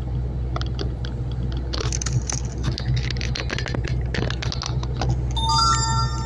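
Truck engine idling with a steady low hum, while small clicks and jingling, like keys, rattle over it for a few seconds. Near the end a short chime of several steady tones sounds.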